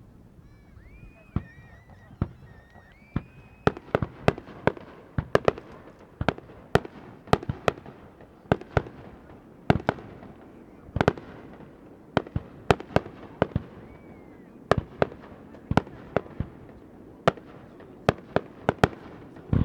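Aerial fireworks shells bursting in a rapid, irregular barrage of sharp bangs, often two or three a second. A few high whistling tones sound in the first few seconds.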